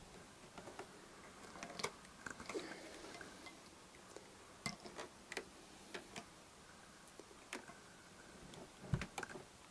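Scattered light clicks and taps of a motorcycle's painted instrument-cluster surround and clocks being handled and fitted together on a workbench, with a dull knock near the end.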